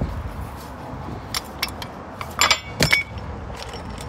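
A few sharp metallic clinks and rattles of hand tools and brake parts being handled, with a louder cluster of clinks with brief ringing about two and a half to three seconds in.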